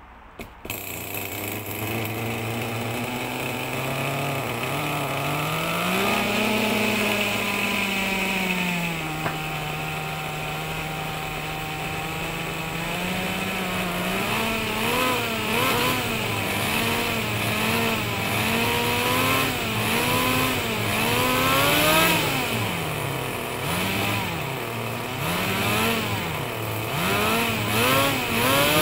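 Small two-stroke nitro glow engine of a 1/10 RC buggy catching about half a second in and running after tuning. It rises in pitch, settles to a steady idle, then is revved in short repeated blips about once a second through the second half.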